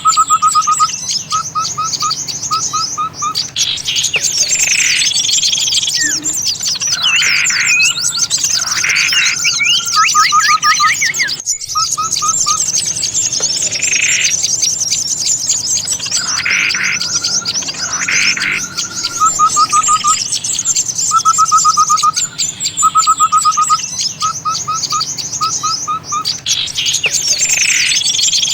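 Bird-trapping lure recording of many small songbirds calling at once: dense, high, fast chattering with short rapid trills of repeated notes. The mix is a loop that starts over about halfway through.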